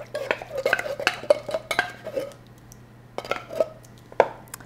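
A utensil clinking and scraping against a tin can as condensed cream of chicken soup is worked out of it into a plastic mixing bowl: a quick run of clinks and scrapes, a short lull, then a few sharper knocks near the end.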